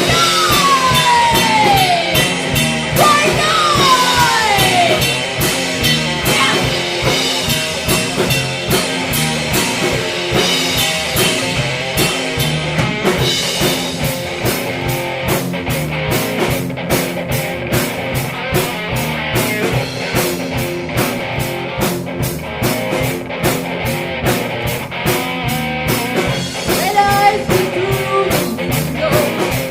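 Rock band playing a song, with two falling pitch slides in the first few seconds and a steady, driving drum beat from about halfway through.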